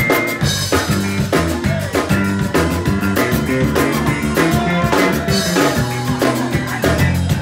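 Live zydeco band playing with a steady beat, drum kit and electric guitar to the fore.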